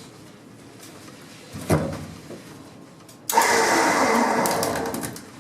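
Hydraulic lift lowering the car body in a short burst: a rushing run starts suddenly about three seconds in and fades away over about two seconds, after a single knock near the middle.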